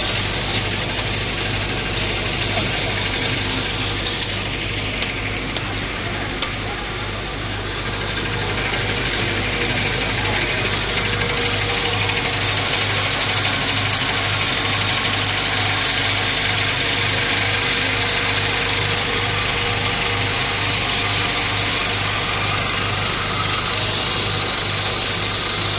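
Flat-die thread rolling machine running steadily, rolling threads onto bolt blanks: a low, evenly pulsing hum under a broad mechanical hiss, a little louder from about eight seconds in.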